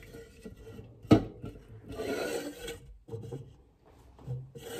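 Aluminium energy drink can handled on a stone countertop: a sharp tap about a second in, then rasping scrapes, about two seconds in and again near the end, as it is slid across the counter.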